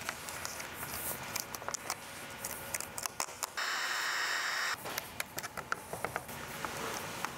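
Vinyl wrap film crackling and ticking as fingers press and smooth it onto the grille trim. A little past the middle a heat gun blows for about a second, warming the film so it molds to the curves.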